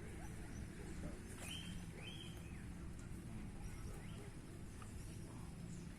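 Outdoor ambience: a steady low rumble with a few short bird chirps, two clearer ones about one and a half and two seconds in, and fainter ones later.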